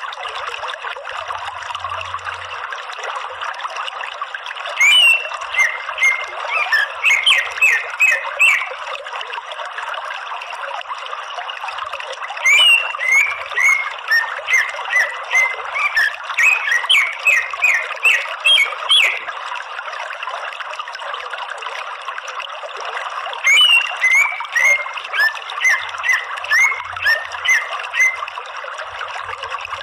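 Green leafbird (cucak ijo) calling in three bouts of fast, sharp chirping notes, about 5, 12 and 23 seconds in, over a steady trickling water sound.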